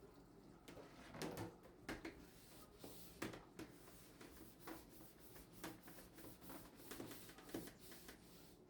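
A faint series of light knocks and clicks, irregularly spaced at about one or two a second.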